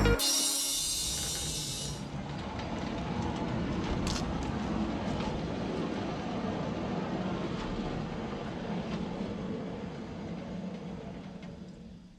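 Woodland Mills HM126 portable bandsaw mill running on its 14 hp engine, with a bright hissing cut for about the first two seconds, then the machine running steadily and slowly fading away near the end.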